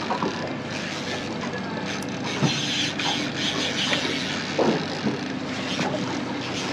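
A baitcasting reel is cranked to wind in a hooked fish, over a steady mechanical hum on the boat and the noise of wind and water.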